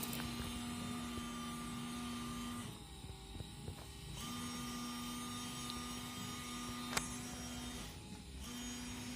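Newly fitted windscreen washer pump motor of a Mitsubishi Lancer 9 humming steadily while switched on for a test. It cuts out twice, about three seconds in and again near eight seconds, and starts again each time. A single sharp click comes about seven seconds in.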